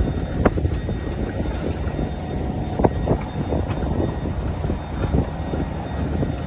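Wind buffeting the microphone and choppy water slapping against a small open fishing boat, with a few sharp knocks about half a second in and near three seconds in.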